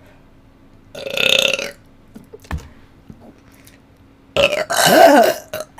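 Two loud burps: a shorter one about a second in, then a longer, louder one near the end whose pitch wavers.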